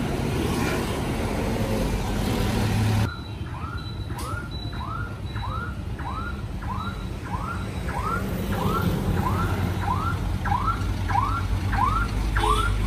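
For about three seconds a bus engine runs steadily amid street traffic. Then, after a sudden cut, an electronic warning chirp rising in pitch repeats about twice a second over a low engine idle, growing slightly louder toward the end.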